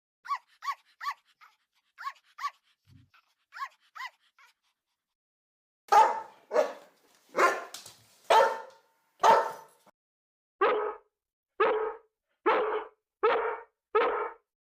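A dog barking in three runs. First come quick, high yaps that drop in pitch, in small clusters. Then five loud, full barks about a second apart, and last five lower, evenly spaced barks.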